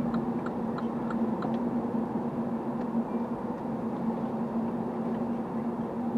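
Steady road and engine noise heard inside a car's cabin while driving, with a constant low hum. A faint ticking, about three ticks a second, runs for the first second and a half.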